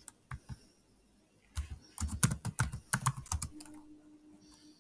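Typing on a computer keyboard: a couple of single keystrokes, then a quick run of keystrokes from about one and a half to three and a half seconds in, followed by a faint steady hum.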